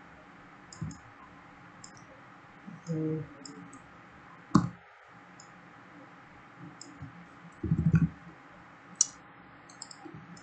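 Computer mouse clicks: faint, scattered short clicks at an uneven pace, with a sharper, louder knock about halfway through and a low thud near the end.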